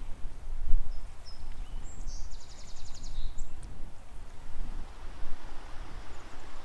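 A low, fluctuating outdoor rumble, like wind on the microphone. About two seconds in, a small songbird gives a short, high, rapid trill lasting about a second. The geese in view are not heard calling.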